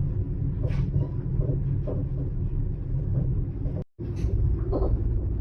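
Steady low rumble inside the passenger car of an Italo high-speed train running at speed. The sound drops out completely for a moment just before four seconds in.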